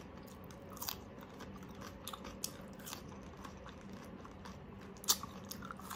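Close-up chewing of crispy oven-baked pork skin, with scattered crisp crunches between softer chews and the sharpest crunch about five seconds in.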